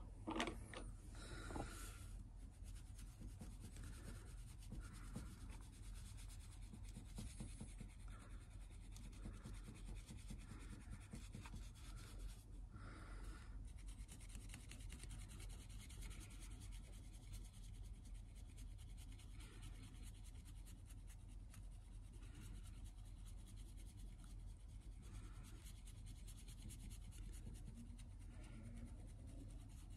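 Cotton swab scrubbing old varnish off the veneer of a wooden music box lid: faint, repeated soft rubbing strokes over a low steady hum. There are a couple of soft knocks near the start.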